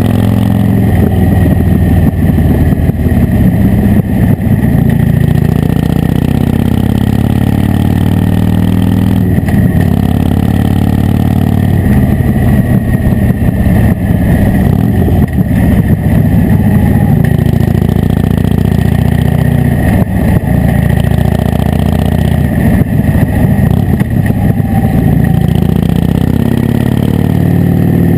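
Harley-Davidson Dyna Wide Glide's V-twin engine running loud while riding, its pitch rising and falling as the throttle is opened and eased off, heard close up beside the engine.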